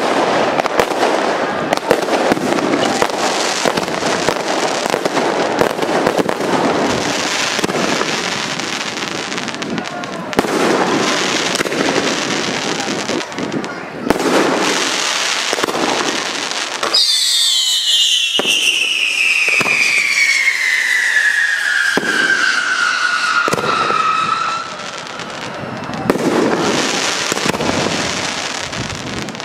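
Fireworks display: dense crackling and popping of bursting aerial shells and crackling stars. A little past halfway, a whistling firework sounds one long whistle that falls steadily in pitch for about seven seconds.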